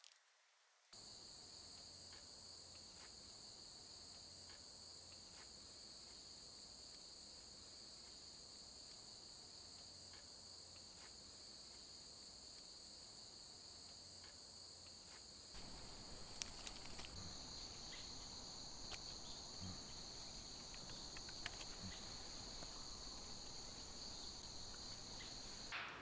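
Insects singing in a steady high-pitched chorus that shifts slightly lower about two-thirds of the way through. Faint scattered clicks of bamboo strips being handled and bound with twine are heard under it.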